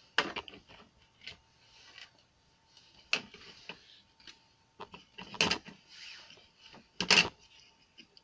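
Handling noise from a motorcycle speedometer's circuit board and plastic housing being moved about on a workbench: about five sharp plastic clicks and knocks, with soft rustling between.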